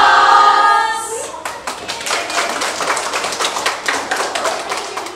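A group of people holding a loud shouted cheer together, which gives way after about a second to clapping, with scattered voices under the applause.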